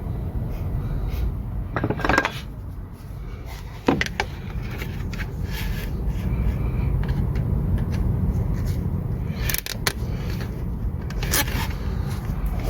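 Metal tools clinking and scraping against engine parts, with several sharp clinks over a steady low rumble.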